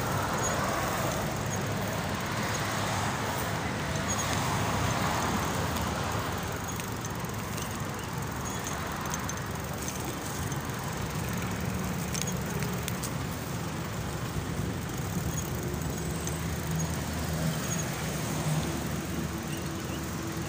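Street traffic noise: a steady rumble of road noise and vehicles, a little louder in the first several seconds.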